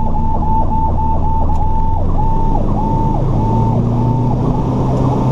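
Fire engine's electronic siren sweeping up and down in pitch a couple of times a second, its cycle slowing slightly about two seconds in, heard from inside the cab of the 1992 Saulsbury Simon/Duplex over its diesel engine's drone, which rises in pitch about three seconds in as the truck speeds up.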